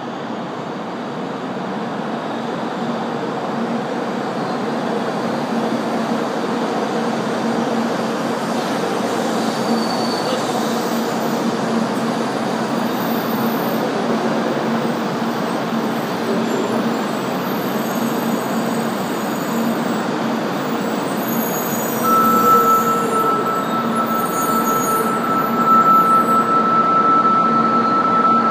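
Kyushu Shinkansen 800 series train pulling in alongside the platform and slowing to a stop: a steady running and rolling noise with a low hum that grows slowly louder. A steady high tone comes in about three-quarters of the way through and holds.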